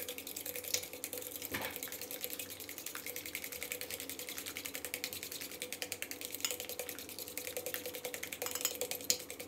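Fork whisking two raw eggs in a stainless-steel bowl: a fast, even clicking of the tines against the metal with a wet slosh of egg, and a faint steady ring from the bowl.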